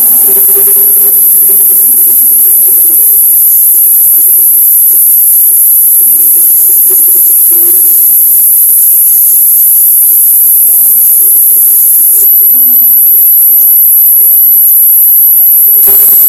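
Loud, steady high-pitched electronic hiss, with faint muffled voices barely audible beneath it. The hiss narrows and gets slightly louder about twelve seconds in.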